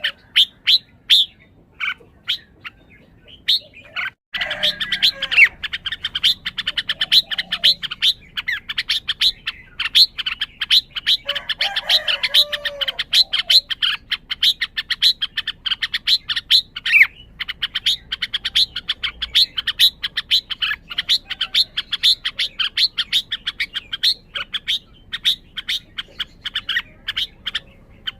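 Red-whiskered bulbul calling in a rapid run of short, sharp chirps, several a second, with a few lower warbled phrases mixed in.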